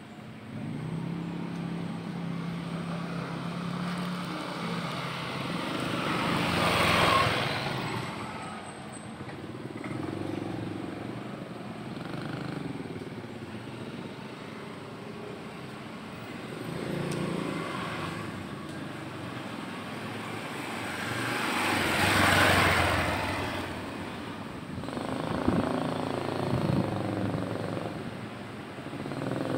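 Street traffic: motor vehicles passing, with two louder pass-bys that swell and fade about a quarter of the way in and again about three-quarters through, over a steady low hum.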